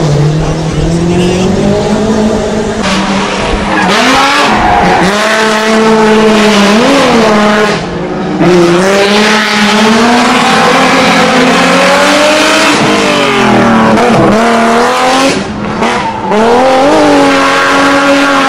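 Hillclimb rally cars running at full throttle, engines revving hard. The pitch climbs and drops back several times as the cars change gear.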